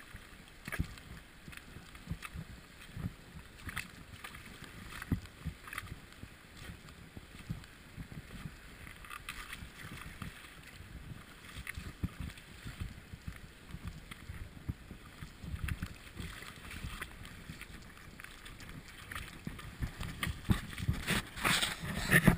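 Wind buffeting an action camera's microphone over the steady rush of river water, with a few louder bumps near the end.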